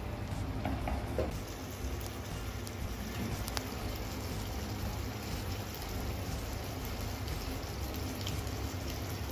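Coconut-milk fish gravy bubbling at a steady simmer in a frying pan, with a few small pops. It is still boiling as it cooks down toward a thick gravy.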